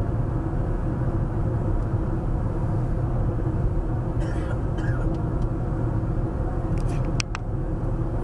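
Steady road and engine noise of a 2013 Honda Civic under way, heard from inside the cabin: a low rumble with a faint steady hum. Two sharp clicks come near the end, with a few fainter ticks about halfway through.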